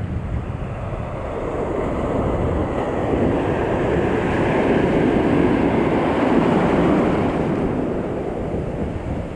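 Ocean surf: a wave breaks and washes in, swelling to its loudest midway and easing off near the end, over steady wind buffeting the microphone.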